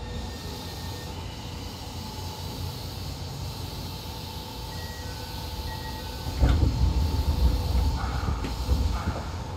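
Eidan 7000 series subway train running, heard from inside the car: a steady low rumble with faint thin tones above it, then a louder stretch of clattering and thuds from about six and a half seconds in.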